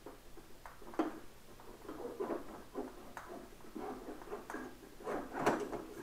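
A Yamaha R1's front fork tube being worked loose and slid down through its triple clamps, making irregular metal scraping and rubbing. There is a sharp click about a second in and a louder knock about five and a half seconds in.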